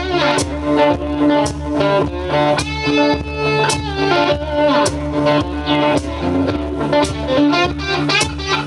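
Instrumental intro of a song: guitar strummed over a steady, repeating bass line, with lead notes that bend in pitch.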